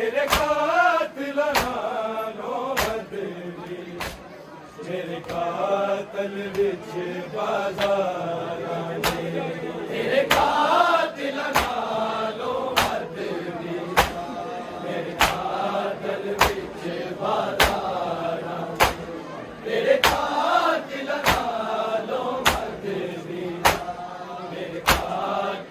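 A group chanting a mourning nauha, kept in time by the sharp, even slaps of matam, hands striking chests, about three beats every two seconds.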